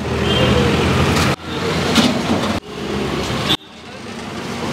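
Loud street noise with traffic rumble, cut off abruptly and starting again three times.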